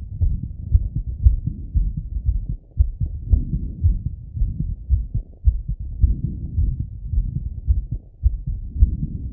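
A man's heartbeat heard through a Littmann stethoscope: low, dull lub-dub thumps in a quick, even rhythm, his heart still fast after a set of exercise.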